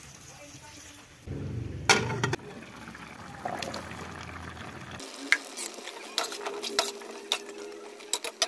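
Cooking in a metal pan: water poured onto simmering chicken with a sizzle, then sharp clinks and scrapes of a spatula against the pan as the pot is stirred.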